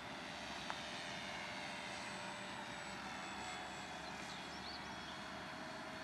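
Radio-controlled Cessna 182 model aeroplane's engine droning steadily in flight, its pitch slowly falling. A short click sounds just under a second in.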